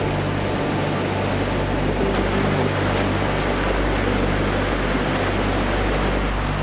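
Fast mountain river, the Alazani, rushing over rocks in whitewater rapids, a steady unbroken roar of water.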